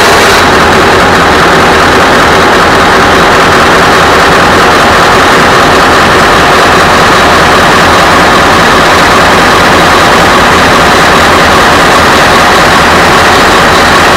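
Tuned 16-litre Scania V8 diesel of an R500 truck, idling steadily and very loudly.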